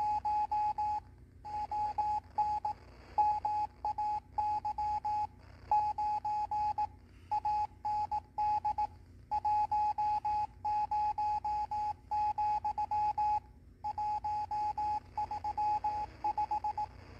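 Morse code (CW) signal received by a (tr)uSDX QRP transceiver on the 40-metre band: a single beeping tone of about 800 Hz keyed on and off in dits and dahs, over faint band hiss.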